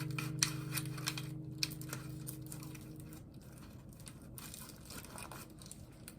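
Faint crinkling and rustling with a few light clicks, from something being handled, under background music that fades out about three seconds in.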